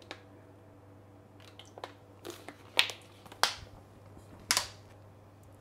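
Tomato paste squeezed from a tube into a stainless steel pan of hot oil. About halfway through come a few short, sharp squirts and clicks, three of them louder with a brief hiss after each.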